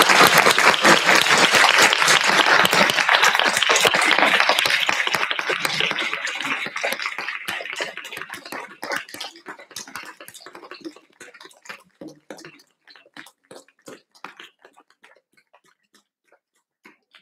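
Small audience applauding: dense clapping that begins to thin about five seconds in and dwindles to scattered single claps near the end.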